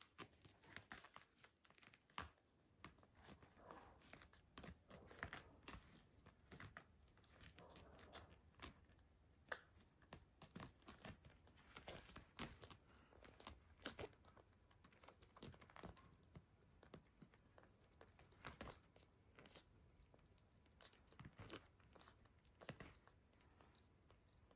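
Newborn American Bully puppy suckling at a milk bottle: faint, irregular wet smacking and clicking mouth sounds.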